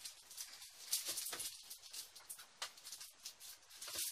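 Faint, irregular rustling and light handling noises, short scratchy bursts with a few soft clicks.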